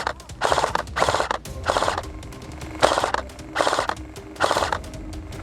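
Airsoft gun firing about six short bursts of rapid full-auto shots in quick succession.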